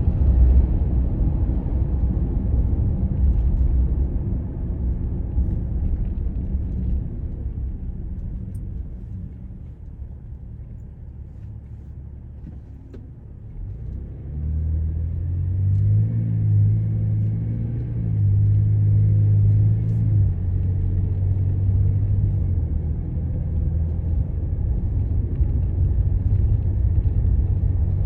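Car engine and road rumble while driving. The rumble eases off around the middle, then a low engine hum comes up strongly about halfway through, shifting in steps as the car picks up speed.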